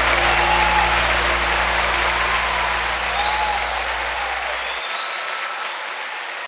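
Crowd applauding, slowly fading away, with a few faint high calls over it. A low steady hum under the clapping stops suddenly about three-quarters of the way through.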